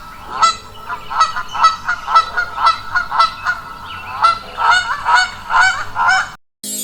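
Geese honking repeatedly, short nasal calls about two a second, some overlapping, cutting off suddenly near the end.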